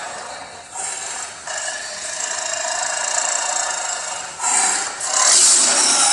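Saber-toothed tiger sound effect: a harsh, raspy snarl with no clear pitch, in several stretches, getting much louder about four and a half seconds in.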